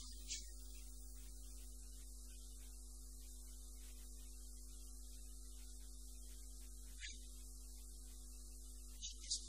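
Steady low electrical mains hum with a faint hiss above it, broken by a few very short hissing ticks: one just after the start, one about seven seconds in, and two near the end.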